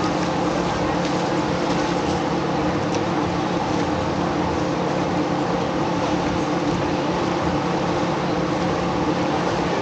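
Steady machine drone: several low hum tones held unchanged over a constant hiss, like a motor or generator running continuously.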